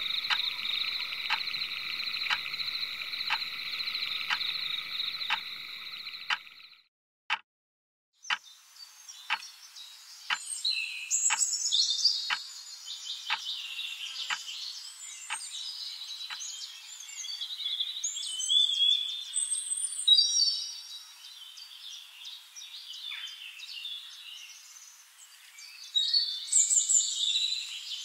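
Frog chorus trilling steadily, with sharp regular clicks about one and a half times a second; it cuts off about seven seconds in. After a brief silence, birds chirp and whistle in varied, high calls, the clicks fading out partway through.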